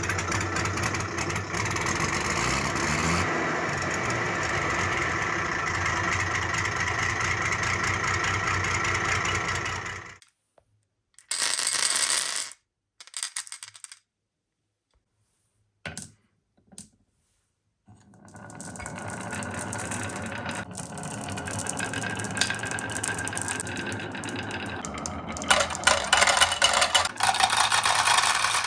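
Marbles rolling and rattling down a marble run of rain gutters and wooden rails, a steady rolling clatter. It stops about ten seconds in, leaving a few short clacks, starts again a few seconds later and ends in louder clattering.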